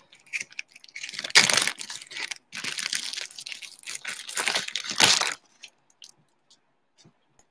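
Wrapper of a trading card pack crinkling and tearing as the pack is opened, a run of rustles over about five seconds, loudest about a second and a half in and again near five seconds.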